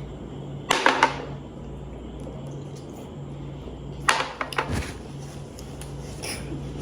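Short knocks and clinks of glassware and dishes on a table, a cluster about a second in and another about four seconds in, over a low steady hum.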